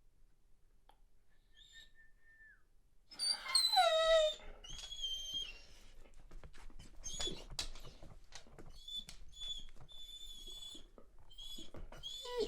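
Weimaraner whining: a loud whine falling in pitch about three seconds in, then a string of high, thin whimpers, repeating to the end.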